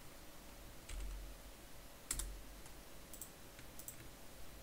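A handful of sharp, scattered clicks from a computer mouse and keyboard, as vertices are selected and a merge is made in a 3D modelling program.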